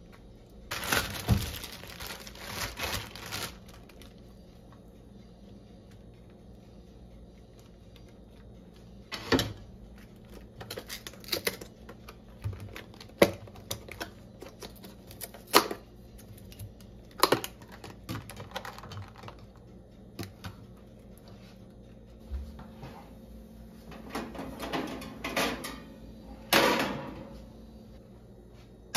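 Salad-making sounds: a spoon scraping and scooping avocado from its skin, then clicks and crinkles of a plastic clamshell pack of dried cranberries being opened and handled, in a string of separate clicks and short scrapes.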